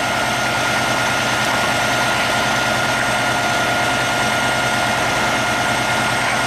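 Heavy diesel engine idling steadily, with a constant whine over the low drone.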